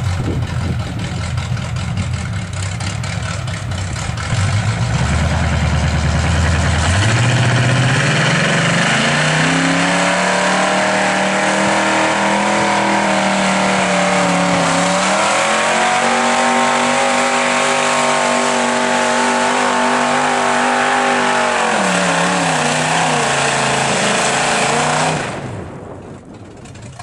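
Chevy small-block V8 with an automatic transmission, revving hard under heavy load as the truck drags a weighted pulling sled. About seven seconds in the revs climb steeply and then hold high, with a brief dip and recovery midway. The revs ease down a few seconds before the end, and the sound falls away sharply near the end.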